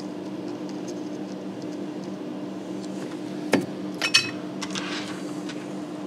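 Small hard clicks and clinks of tools and connector parts being handled at a workbench: one sharp click about three and a half seconds in and a quick cluster of clicks just after four seconds, over a steady low hum.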